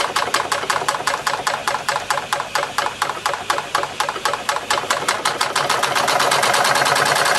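Wilesco D32 model steam engine running on live steam, its exhaust beating rapidly and evenly. The beat quickens and about six seconds in blurs into a steady, louder rush.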